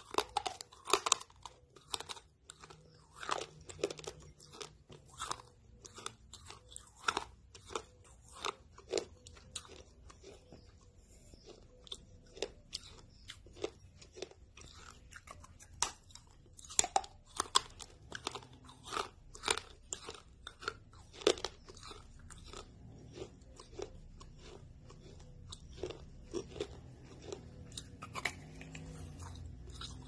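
Close-miked biting and chewing of a small, crispy, orange snack: many sharp crunches at irregular intervals, with softer chewing between them.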